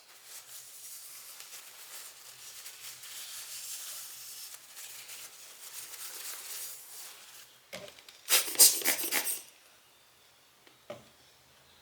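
Lens glass being rubbed clean, a soft scratchy rubbing for about seven seconds, then a short loud hiss of blown air from several quick puffs, clearing dust off the element.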